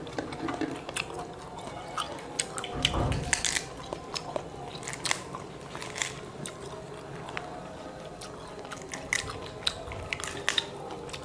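Motoa fruits being split and peeled by hand, with many short crisp cracks and snaps of rind, mixed with close-up chewing of the fruit. A dull low thump about three seconds in.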